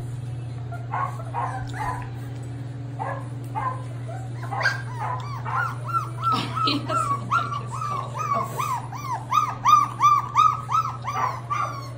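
Aussalier puppies yipping and whimpering. A few scattered yips come first, then from about halfway through a fast run of high, rising-and-falling yips at about three a second, getting louder toward the end. A steady low hum runs underneath.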